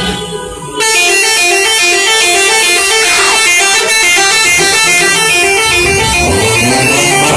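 Musical vehicle horn playing a fast, repeating melody of short stepped notes, starting abruptly about a second in.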